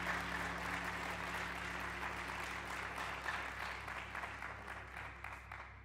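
Audience applauding, the clapping thinning and dying away near the end, over a steady low hum.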